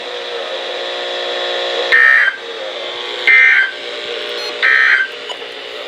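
Three short, harsh digital data bursts about 1.4 seconds apart from a NOAA Weather Radio broadcast: the EAS/SAME end-of-message tones that close the tornado warning. They play over a steady buzzing hum.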